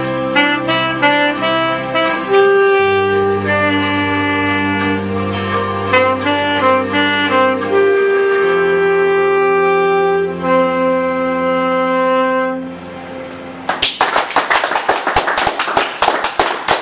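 Saxophone playing a slow melody over low held accompaniment chords, the last long notes fading out about twelve seconds in. About two seconds later an audience starts clapping.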